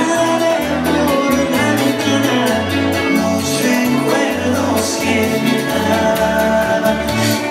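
Salsa music with a singer over a bass line that changes notes every half second or so.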